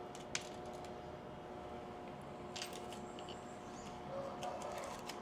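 Quiet room tone with a faint steady hum, broken by a few small clicks and light clinks: a thin silver chain and pendant being handled and put down.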